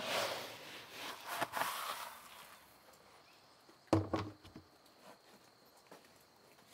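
Dry chick feed rustling and hissing as a hand scoops it out of a plastic barrel with a plastic scoop for about two seconds. About four seconds in comes a hollow plastic knock, then only faint ticks.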